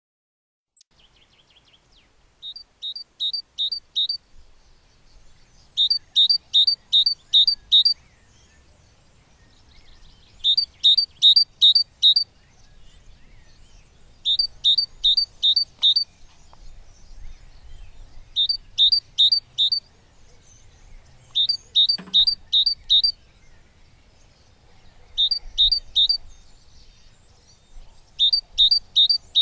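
Great tit singing: short phrases of four to six sharp, high, evenly repeated notes, given eight times about every four seconds.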